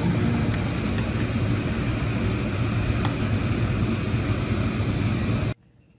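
Steady rushing noise of a pot of spiced liquid at a rolling boil on an electric stovetop, with a few faint clicks of a metal spoon against the pot as it is stirred. The sound cuts off suddenly near the end.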